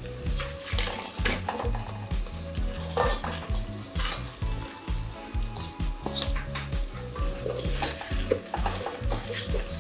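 Washed raw basmati rice poured onto onions frying in oil in an aluminium pot, sizzling, then stirred in with a wooden spoon that scrapes against the pot.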